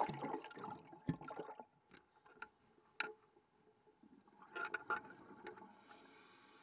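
A splash as a scuba diver drops from a boat into the sea, then muffled underwater gurgling with a few sharp clicks. A steady hiss sets in near the end.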